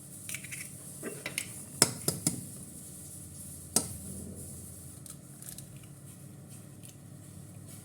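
Sharp clinks and knocks of kitchen utensils against a pot or bowl while ingredients are added: three close together about two seconds in, one more near four seconds, over a low steady background hum.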